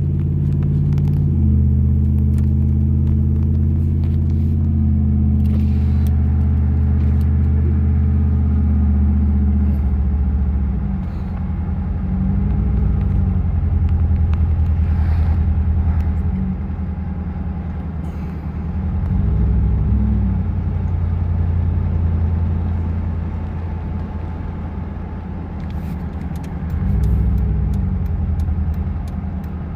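Car engine and road noise heard from inside the moving car's cabin, a steady low drone. About ten seconds in the engine note changes, then rises and falls three times.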